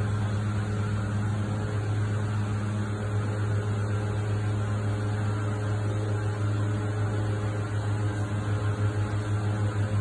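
Steady low mechanical hum at one constant pitch, taking on a pulsing beat near the end.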